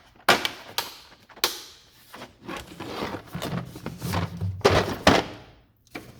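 Clicks and knocks of a torx set's case being handled in a toolbox drawer, several sharp knocks with a duller shuffling stretch between.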